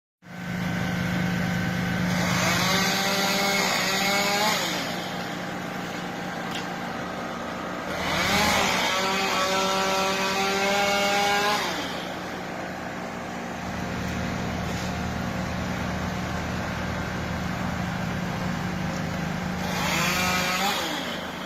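Chainsaw revving up to full speed three times, about two seconds in, about eight seconds in and briefly near the end, each burst holding a high steady note before dropping back. A steady low engine drone runs underneath throughout.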